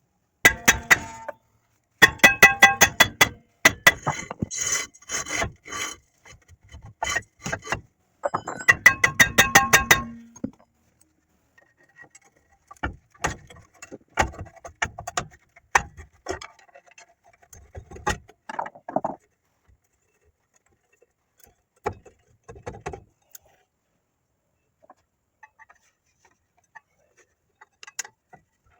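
Hand tools working on a truck's rear drum brake assembly: bursts of rapid metal clicks and taps with a ringing tone, then scattered single knocks and scrapes. It is a stuck brake part being worked loose.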